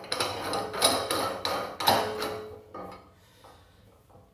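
Stainless steel cap being screwed by hand onto threaded galvanised pipe: irregular clicks and scraping from metal on metal for about two to three seconds, then it goes quiet.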